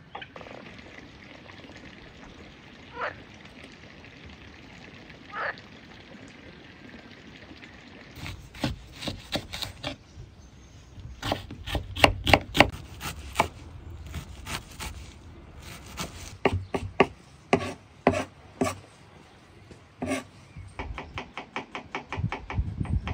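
Kitchen knife chopping onion on a wooden cutting board: a few light single cuts, then from about a third of the way in quick runs of sharp knocks as the blade strikes the board.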